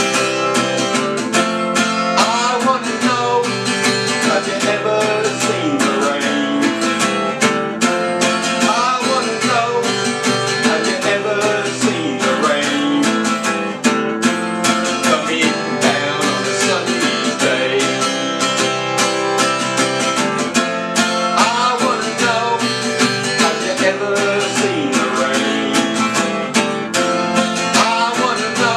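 Acoustic guitar strummed in a steady rhythm, with a man's voice singing near the end.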